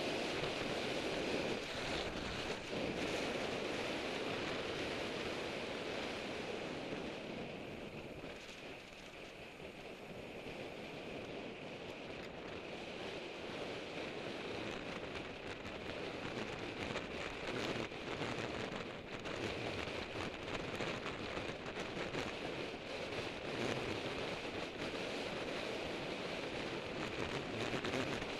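Wind buffeting the microphone of a bicycle-mounted action camera at racing speed, a steady rushing noise that eases briefly about a third of the way in and then builds again.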